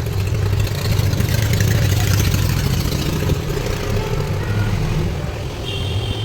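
A motor running steadily with a low hum, and a rushing hiss from about one to three seconds in.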